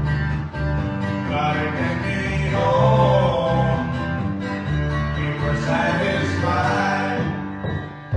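Live acoustic duo music: guitar with a sung vocal line holding long notes, in a country/bluegrass style. It dies down near the end.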